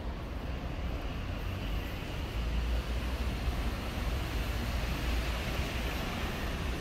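City street traffic: a steady noisy drone that swells about two seconds in and eases near the end, as of a vehicle passing, over an uneven low rumble.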